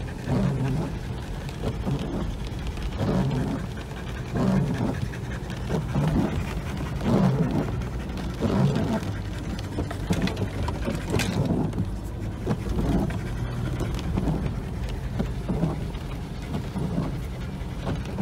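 An anxious dog panting hard inside a moving vehicle's cabin, in repeated heavy breaths over the steady low drone of the engine and tyres.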